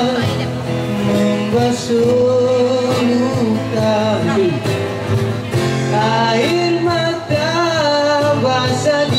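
Live acoustic band: a man singing into a microphone over strummed acoustic guitars.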